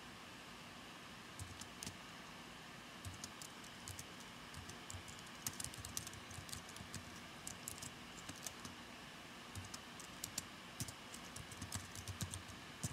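Typing on a computer keyboard: soft, irregular key clicks in quick runs with short pauses, starting about a second and a half in.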